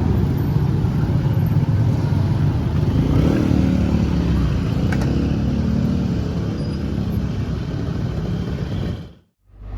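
Steady engine noise of road vehicles. It drops out suddenly about nine seconds in, and a low steady hum follows.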